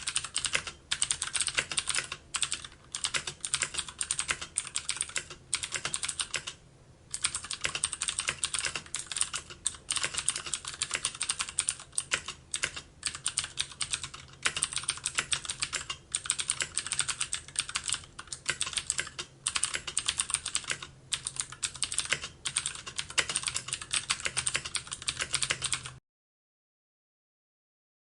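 Fast, continuous typing on a computer keyboard: a dense, uneven clatter of keystrokes with brief pauses. It stops dead about two seconds before the end.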